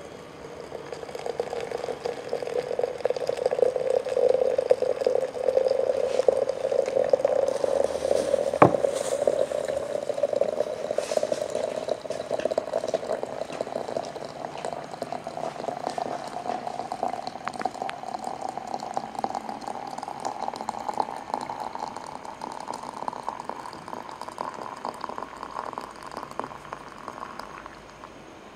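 Liquid poured in a steady stream into a container, its pitch slowly rising as the container fills, and it stops near the end. A single sharp knock about nine seconds in.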